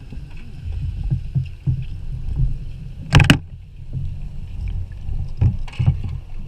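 Underwater sound picked up through a camera housing: an uneven low rumble of moving water, with a sharp crackling burst about three seconds in and two shorter ones near the end.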